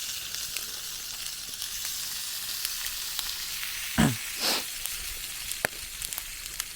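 Wood campfire crackling, with a steady hiss and scattered sharp pops. About four seconds in comes a louder, brief sound that falls sharply in pitch, then a softer second one.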